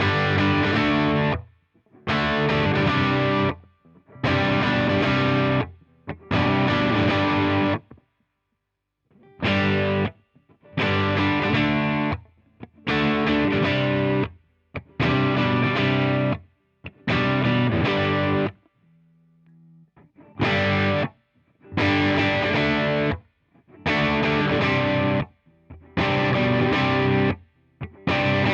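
Suhr Standard electric guitar playing a series of strummed chords, each held for about a second and then cut off, with short gaps between them and a longer pause a little past the middle.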